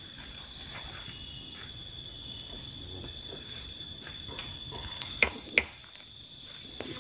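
Forest insects droning with a steady, loud, high-pitched tone, with two sharp knocks a little after five seconds in.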